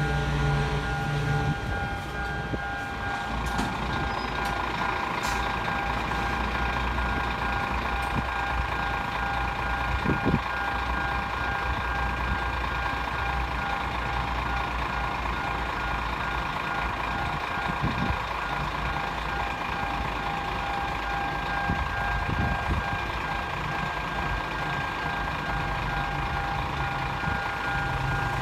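Level-crossing warning alarm sounding continuously as steady high electronic tones while the crossing is closed for an approaching train. A vehicle engine idles beneath it for the first second or so and again at the end.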